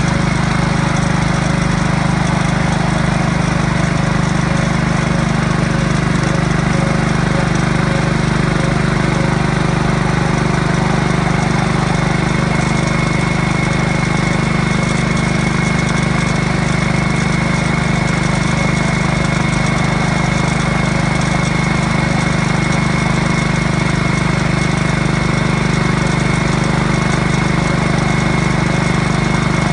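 Small engine running steadily at one speed, with a thin steady whine above it.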